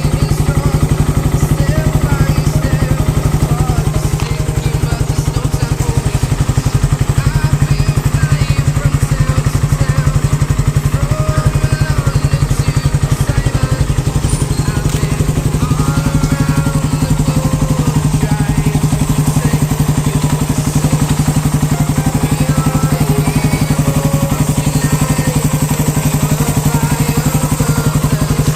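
Suzuki Raider 150 single-cylinder four-stroke engine idling steadily through a big-elbow exhaust header with the catalytic canister removed.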